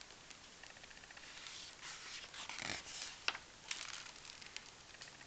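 A picture book's paper page being turned by hand: a rustle and swish of paper about two seconds in, with a couple of light clicks as the page settles.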